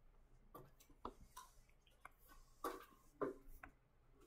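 A few faint, scattered clicks and taps at a computer, as windows are switched and a graphing calculator is opened, over near silence.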